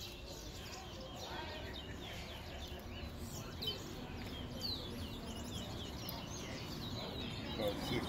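Towa-towa finches (chestnut-bellied seed finches) singing: a fast, continuous run of short, sweeping whistled and chirped notes.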